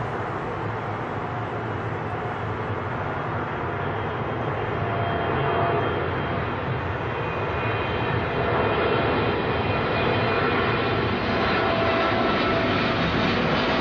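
Boeing 777 on landing approach with its gear down, its two turbofan engines rumbling and growing louder as it comes in low overhead. A steady whine from the engine fans rises out of the rumble from about five seconds in.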